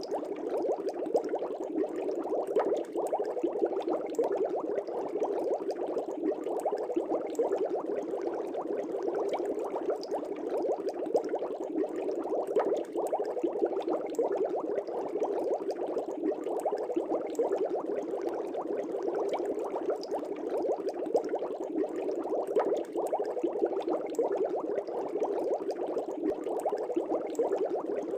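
Air bubbles bubbling in a fish tank: a steady, dense bubbling with many small crackles.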